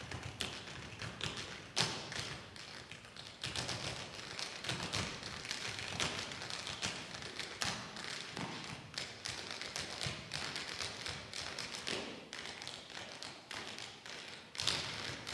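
Tap shoes on a stage floor: several dancers tapping quick rhythms with their metal taps, sharp clicks and heavier stamps, with no music. The tapping gets a little louder near the end.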